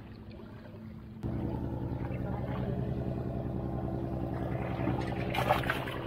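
Steady low engine hum, growing louder about a second in and holding steady, with a brief rustle near the end.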